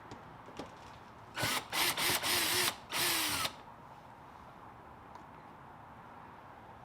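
Power drill running in several short bursts, revving up and down as it backs out small fender-liner screws.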